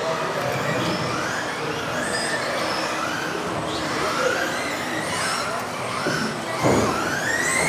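Several electric off-road RC buggies racing, their motors whining up and down in pitch as they accelerate and brake, with echo from the hall. A thump about six and a half seconds in, followed by a long rising whine.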